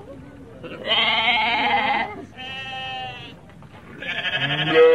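Sheep bleating three times, the middle bleat quieter than the other two.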